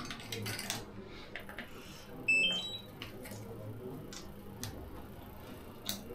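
A quick rising run of three short electronic beeps about two seconds in, a power-on chime from the DJI Air 2S drone and its remote controller, among light clicks of cables and plastic being handled.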